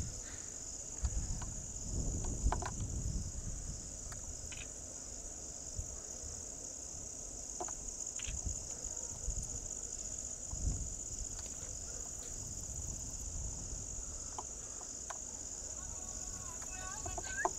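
Steady high-pitched trilling of crickets, with a low rumble underneath and a few faint clicks.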